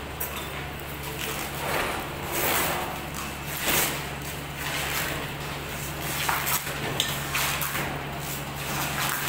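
Irregular scraping and knocking of a steel multi-gym frame being shifted and adjusted by hand, over a steady low hum.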